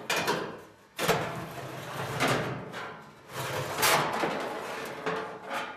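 A stamped sheet-steel replacement trunk floor pan being lifted out of a car trunk: sheet metal scraping and knocking against the old floor in several separate scrapes.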